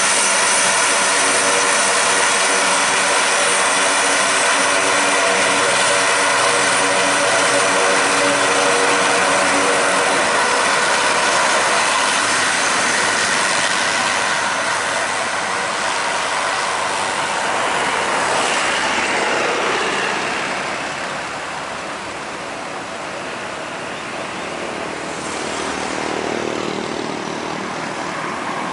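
Four turboprop engines of a US Marine Corps Lockheed C-130 Hercules taxiing past: a loud, steady propeller drone with a whining tone. It fades about two-thirds of the way through as the aircraft moves away, then swells briefly near the end.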